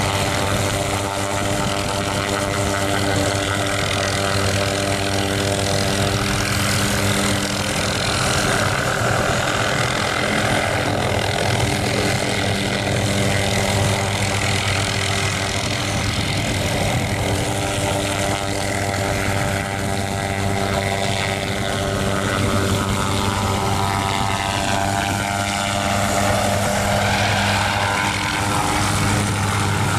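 OH-6D light helicopter's turboshaft engine and rotors running at flight power: a steady drone with several even tones while it hovers. In the last several seconds the tone slides as the helicopter banks away.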